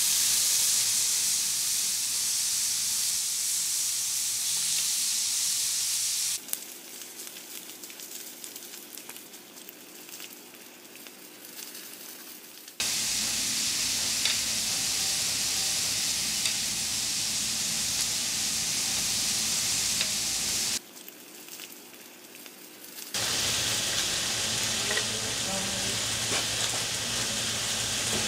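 Beef tripe and small intestine sizzling and spitting on a hot stone-coated griddle as they grill. The sizzle drops much quieter for about six seconds, starting some six seconds in, and again for about two seconds later on.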